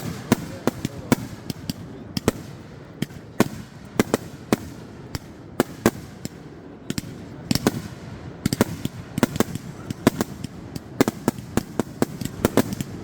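Fireworks going off in a finale: dozens of sharp bangs at irregular intervals, often several in quick succession, over a continuous low rumble.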